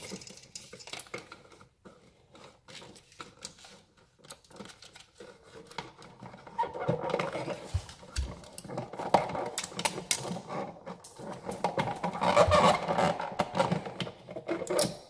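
Scattered small clicks and scraping of a screwdriver and wires being worked onto a GFCI receptacle's terminal screws, busier about halfway through and again near the end.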